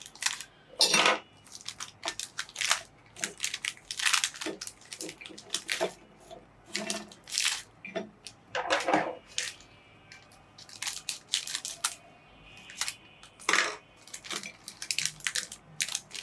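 Biscuits being crushed in a meat grinder: irregular crunches and cracks, with short pauses between them.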